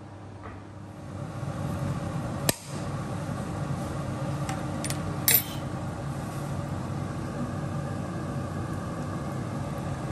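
Kitchen sounds of a pan of beef stroganoff being stirred with a wooden spatula on an induction hob, over a steady hum. There is a sharp knock about two and a half seconds in and two short clinks around five seconds in.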